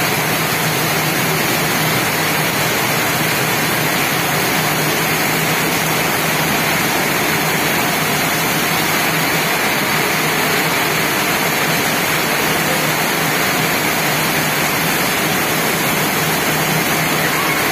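Heavy tropical downpour: rain pouring down steadily in an even, unbroken hiss.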